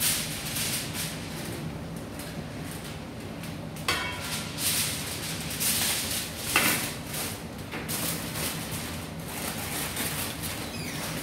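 Aluminium foil crinkling and rustling as it is folded and pressed around the rim of a large steel cooking pot. A metal pot lid clinks against the pot with a brief ring about four seconds in, and there is a sharp knock about six and a half seconds in.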